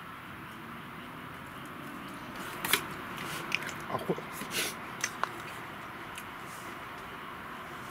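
Someone eating: chewing, with a handful of sharp clinks of chopsticks against a metal mess tin of rice between about two and five seconds in, over a steady hiss.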